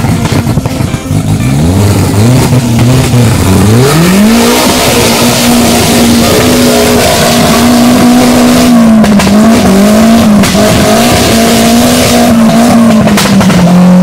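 Off-road racing buggy's engine revving hard under load as it churns through deep mud. It starts with a few quick rising revs, then holds high revs with brief dips and eases off a little near the end.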